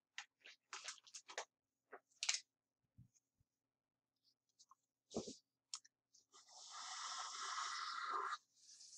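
Felt-tip marker drawn across paper in one long scratchy stroke from about six seconds in, lasting about two seconds, with a shorter stroke near the end. Before it, a few light clicks and one thump.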